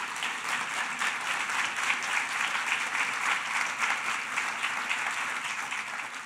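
Audience applauding, dense steady clapping that eases slightly near the end.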